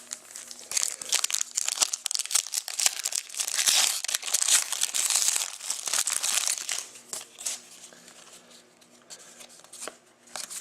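Foil wrapper of a trading-card pack crinkling and tearing open, with the cards shuffled in the hands. The crinkling is busiest for the first seven seconds, then thins to a few soft handling clicks.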